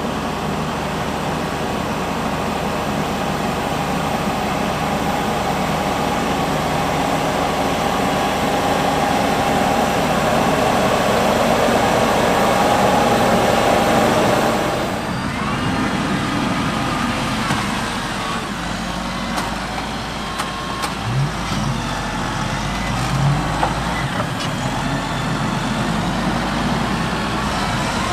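Fendt 724 tractor engine running while pulling a five-furrow plough. About halfway through the sound changes abruptly to a deeper rumble with a few short rises and falls in pitch.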